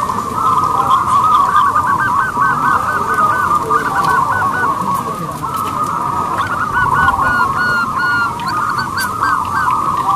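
Zebra doves (perkutut) cooing: quick runs of short repeated notes, with several calls overlapping throughout.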